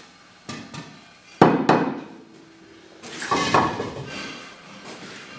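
Sharp knocks and clunks of hollow clay walling blocks being handled and laid. The loudest pair of knocks comes about a second and a half in, and a cluster of knocks with some scraping follows about two seconds later.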